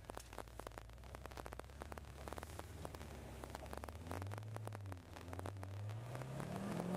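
Supercharged Corvette Z06 V8 heard from inside the cabin, running low and steady, then from about four seconds in its note rises as the car accelerates. Faint clicks and rustling sound throughout.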